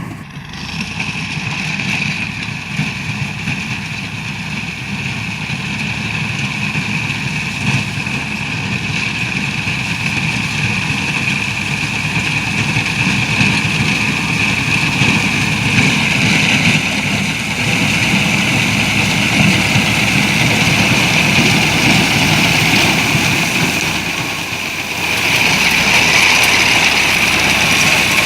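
Harvesting machinery running steadily: an engine drone with a steady high-pitched whine over it, growing a little louder near the end.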